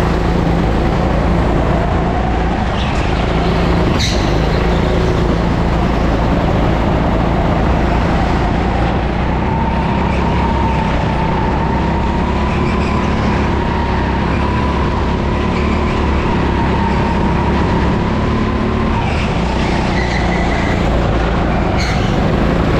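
Go-kart heard from on board while driving: a steady low rumble with a motor whine that rises and falls with speed.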